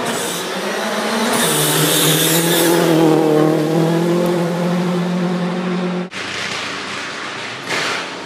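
Rally car at full throttle on a gravel special stage, approaching and passing close by, its engine note swelling and then falling in pitch as it goes past. The sound cuts off suddenly about six seconds in.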